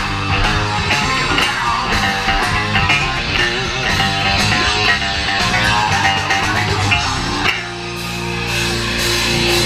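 Live rock band playing an instrumental passage, guitar to the fore over bass and drums; about seven and a half seconds in, the band settles onto a held low note.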